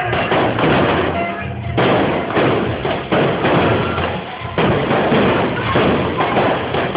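Fireworks going off with several sudden booms, the biggest about two and five seconds in, over loud music with a steady bass.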